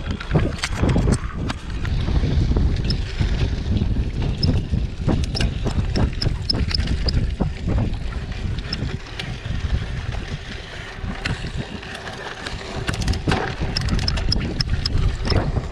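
Mountain bike ridden fast on a dirt forest trail: wind buffeting the microphone and tyre rumble, with frequent sharp rattles and knocks from the bike over bumps.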